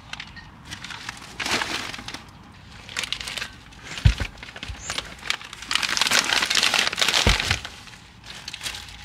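Crinkling and rustling in several bouts, with two dull thumps about four and seven seconds in: groceries and bags being handled.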